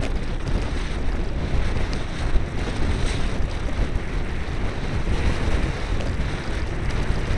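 Wind rushing over the microphone, with the low rumble and light rattling of a mountain bike rolling down a rough dirt track.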